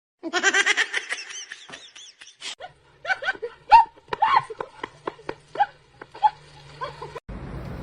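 A small animal's quick, high-pitched cries, many in a rapid run at first, then fewer and shorter, with a few sharp knocks among them; the sound breaks off near the end.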